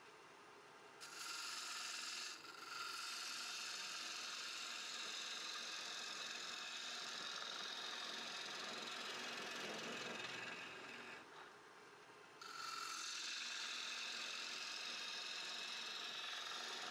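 Bowl gouge cutting the inside of a small she oak bowl spinning on a wood lathe: a steady, hissing shear of the cut. The cutting sound drops away at the start and again for about a second and a half about eleven seconds in, then comes back.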